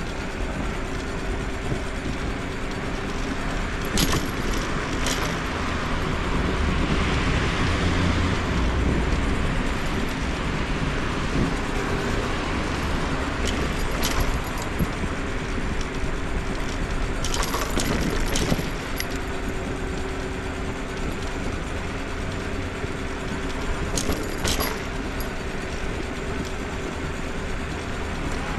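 Riding a scooter along city streets: a steady hum with road and wind noise, broken every few seconds by sharp rattles and clicks as it goes over bumps, and a louder rushing swell about a quarter of the way in.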